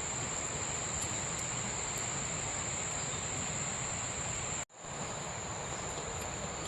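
Steady high-pitched insect chirring over a low, even outdoor hiss. It drops out completely for a split second about four and a half seconds in, then resumes unchanged.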